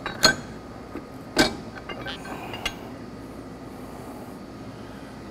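A few short metallic knocks and clinks as the metal plates of a plate filter are slid along its rails and lifted out, the loudest about a second and a half in.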